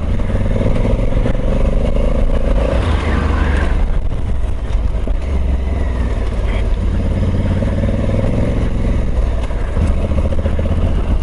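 The 1084 cc parallel-twin engine of a 2020 Honda CRF1100L Africa Twin running steadily while the motorcycle is ridden at low speed over a gravel forest track, with tyre and road noise.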